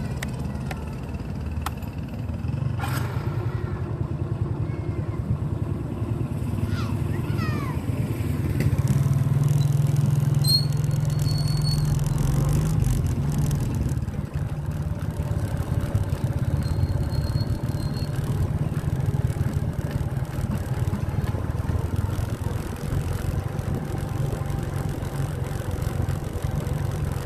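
Motorcycle engine running steadily under way, with wind noise over it; the engine gets louder for a few seconds about a third of the way in.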